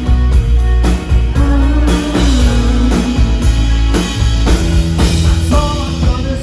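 Live amplified rock band playing: a driving drum-kit beat under bass and electric guitar.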